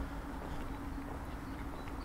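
Footsteps on a paved path, with a steady low hum in the background.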